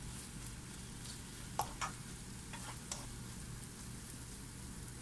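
Prawn masala sizzling in a non-stick frying pan as a slotted spatula stirs it, with a few sharp clicks of the spatula against the pan between about one and a half and three seconds in.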